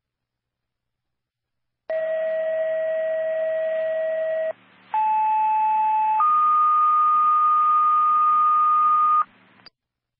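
Fire dispatch radio paging tones starting about two seconds in: a steady tone held about two and a half seconds, a brief pause, then a two-tone sequential page, a short lower tone stepping straight up to a higher tone held about three seconds. This is the tone-out that sets off a fire station's pagers before the dispatch is read.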